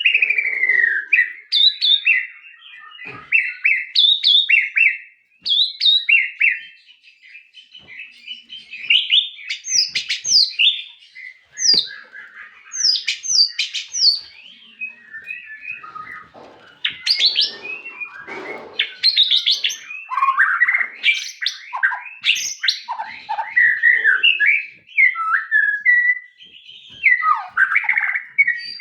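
A murai (Copsychus songbird) singing a long, varied song of rapid whistled and chirping phrases, the quick notes often sweeping up or down, with short pauses between bouts.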